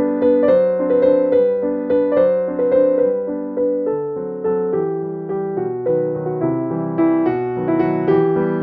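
Background music: a gentle piano melody with chords.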